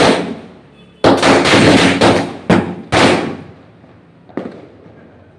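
Ground fireworks going off one after another, each starting with a sharp crack followed by a loud hiss of spraying sparks that dies away over a second or so. Four go off in the first three seconds, the last fading out about four seconds in, and a single small pop follows.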